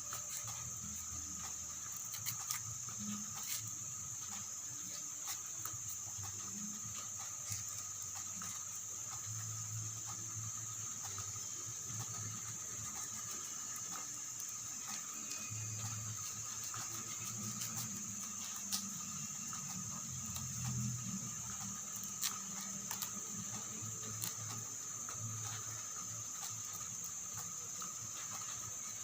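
Light scattered clicks and taps of hand-carving a coconut shell, over a steady high-pitched drone.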